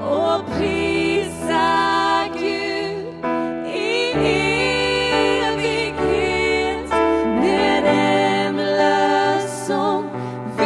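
Worship song: a singer's voice with vibrato over slow, sustained accompaniment chords, the bass note shifting every few seconds.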